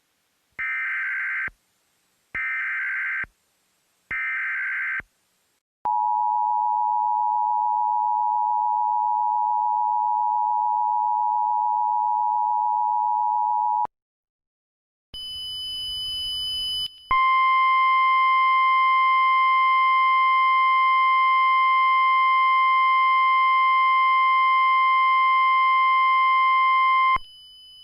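Emergency Alert System tones: three short bursts of SAME digital header data, then the two-tone EAS attention signal held for about eight seconds. After a pause and a brief hiss comes the single steady weather radio alert tone, lasting about ten seconds and cutting off just before the end.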